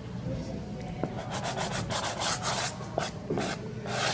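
Soft pastel stick scraping over sanded pastel paper in quick short strokes, several a second, starting about a second in.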